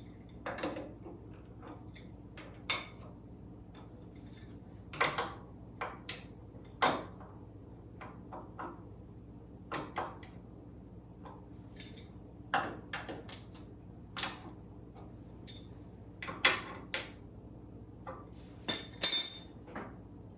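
Metal parts and hand tools clinking and knocking at irregular intervals over a steady low hum. The loudest is a sharp, ringing metal clank near the end.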